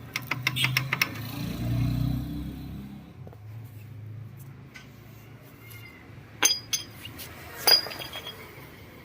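Metal tools and parts clinking during scooter brake work: a quick run of small clicks at the start, a low rumble for a second or two, then two sharp ringing metal clinks about a second apart near the end.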